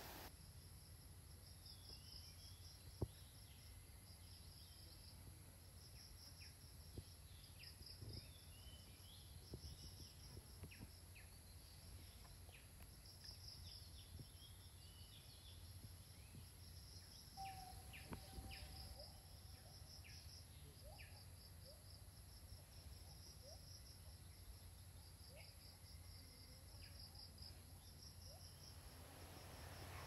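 Faint forest ambience: a high-pitched insect calling in short pulsed bursts about once a second, with scattered short bird chirps over a low steady rumble. A single sharp click about three seconds in.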